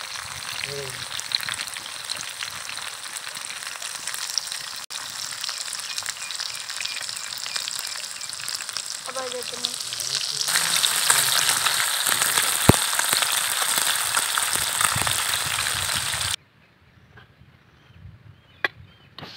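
Snakehead murrel fish steaks sizzling in oil on a wide flat pan, with dense fine crackling that grows louder about ten seconds in. The sizzling cuts off suddenly near the end, leaving quiet background with a few faint clicks.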